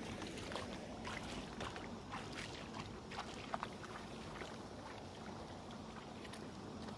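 Legs wading through shallow river water: faint sloshing with scattered small splashes and drips.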